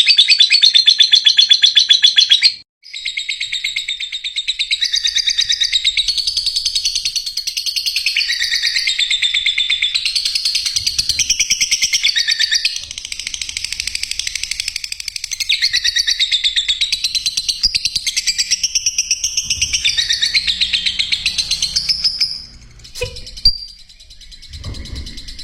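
Lovebirds chirping in a rapid, continuous, high-pitched stream, with a brief break about three seconds in. The chirping stops near the end, followed by a single sharp click.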